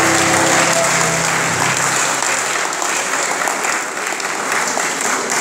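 Audience applauding at the close of a carol, with the last held chord of the music dying away in the first couple of seconds.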